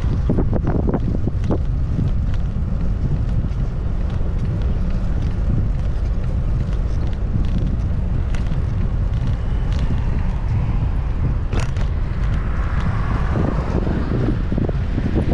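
Steady low wind rumble buffeting the microphone while on the move along a road, with scattered small clicks and rattles.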